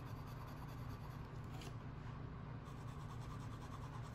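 A fine-nibbed Lamy AL-star fountain pen scribbling on notebook paper, a faint scratchy rub of nib on paper over a low steady hum.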